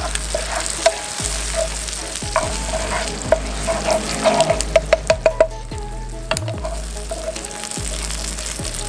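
Baby rats and garlic stir-frying in hot oil and soy sauce in a nonstick frying pan: a steady sizzle, with a wooden spatula scraping and tapping against the pan. A quick run of taps comes about halfway through.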